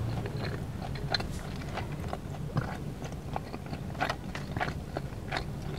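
Close-miked chewing of a mouthful of sushi burrito: wet mouth clicks and smacks at an uneven pace, over a steady low hum.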